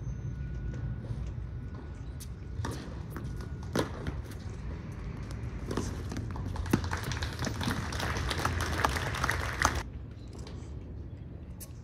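Tennis rally: a tennis ball struck by rackets and bouncing on a hard court, a sharp pop roughly every second. Over the last few seconds a denser hiss with rapid small clicks joins in, then cuts off suddenly about ten seconds in.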